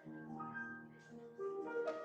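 Slow instrumental music with held notes.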